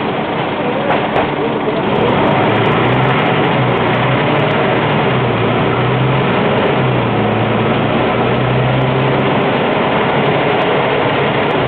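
Scania N94UB single-deck bus heard from inside the passenger saloon: its five-cylinder diesel engine, with rattles and road noise from the body. The bus gets louder about two seconds in as it pulls away, and the engine note then rises and falls as it drives.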